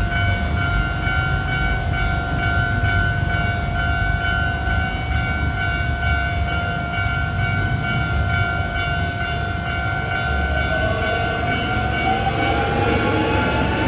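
Hankyu Kyoto Line train at a level crossing: a steady rumble of wheels on rails with a steady pitched whine, then from about ten seconds in a whine rising in pitch as a train's motors pick up speed.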